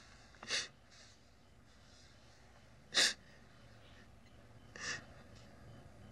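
A woman sobbing, with three sharp gasping breaths: about half a second in, at about three seconds (the loudest), and near five seconds.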